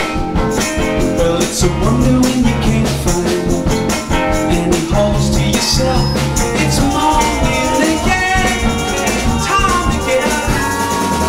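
Live band playing a song with drum kit, bass and guitar, with a held melody line over the top.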